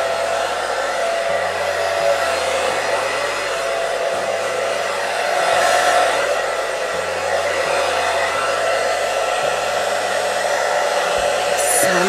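Hot Tools hair dryer running steadily: a rush of air with a constant motor whine. It keeps running without cutting out while it is swung around the head, which is the test for its fault of switching off when moved.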